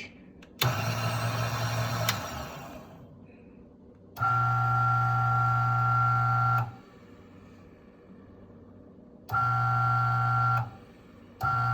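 DF64E espresso grinder's motor switched on and off in four short runs: a steady hum with a whine while the burrs spin, each run stopping suddenly except the first, which is noisier and fades out over about a second.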